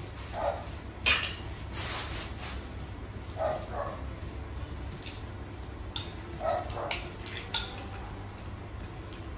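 A metal fork or tongs clinks sharply against a plate and bowl several times while raw chicken pieces are handled for breading, the loudest clink about a second in. A small dog yips faintly in the background, a short yelp or two roughly every three seconds.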